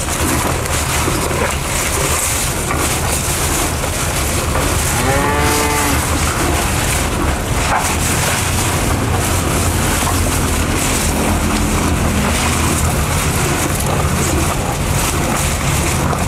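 Cattle mooing once, a call of about a second around five seconds in, with a fainter call around eleven seconds in, over steady background noise.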